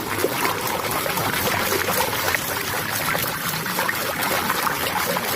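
Water pouring and splashing steadily onto a muddy toy car as it is rinsed clean.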